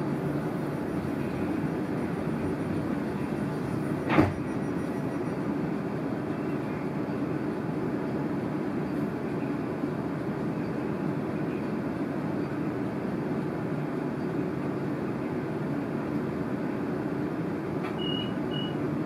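Steady hum inside a passenger train carriage standing at a platform, with a single sharp knock about four seconds in and two short high beeps near the end.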